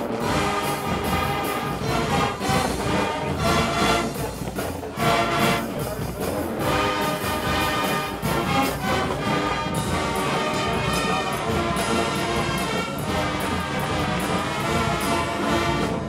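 Marching band playing: brass ensemble sounding chords and melody over drums and front-ensemble percussion, with accented full-band hits every second or so in the first half, then longer held chords.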